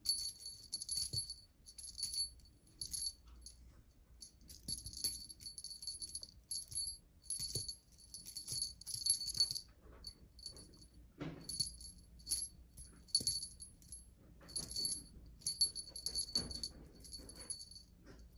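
Small jingle bell on a feather wand cat toy, shaken in short irregular bursts of high ringing jingles.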